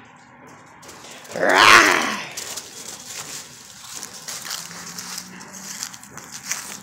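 A puppy lets out one loud vocal sound, a growl-like bark lasting under a second, about a second and a half in. After it comes lower, scattered rustling of dry leaves as the puppy noses and chews its toy.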